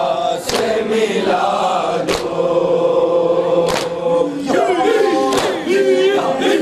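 A group of men chanting a nauha, a Shia mourning lament, in unison. Their chants are punctuated by a sharp, loud slap of matam (chest-beating) about every second and a half.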